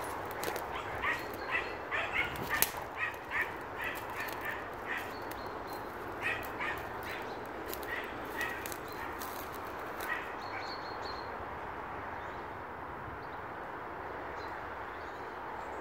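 Hunting dogs yelping in short, high yaps, irregular and often two or three a second, as they give tongue on a rabbit that has just bolted. The yelps stop about ten seconds in.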